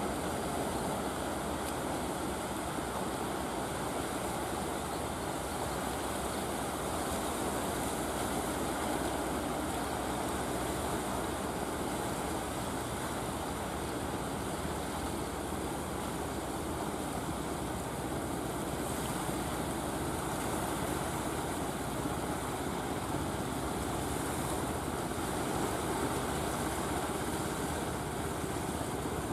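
Engine of a wooden fishing boat running steadily under way, mixed with waves washing.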